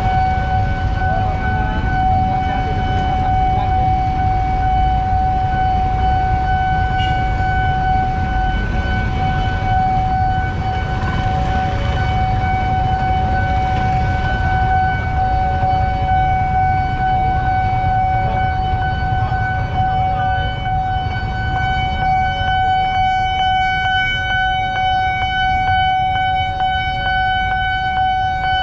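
Railway level-crossing warning alarm sounding: a steady electronic tone with a lower tone switching on and off at a slow steady beat, which signals that the crossing is closed for an approaching train. Under it is the low rumble of idling motorcycle and truck engines.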